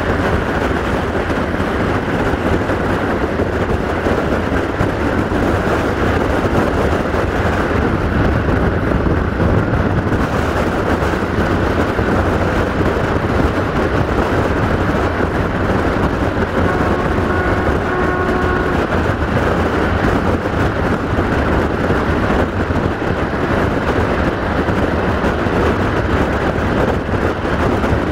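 Passenger train running at speed, heard from an open window alongside the coaches: a steady rumble of wheels on the rails mixed with the rush of wind. A faint brief tone sounds about two-thirds of the way through.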